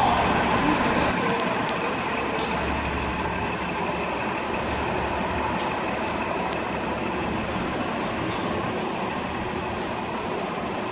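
Steady running noise of a moving SEPTA transit vehicle.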